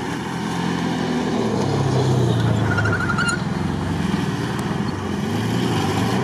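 First-generation Suzuki Vitara off-roader's engine revving as it drives through grass, the pitch rising and falling twice. A brief fast rattle comes about halfway through.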